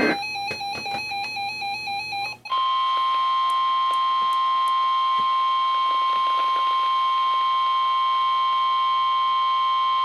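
Weather alert radio beeping in a fast, repeating pulsed pattern that cuts off about two seconds in. It is followed by the steady 1050 Hz warning alarm tone of a NOAA Weather Radio broadcast, the attention signal that comes just before a warning message is read.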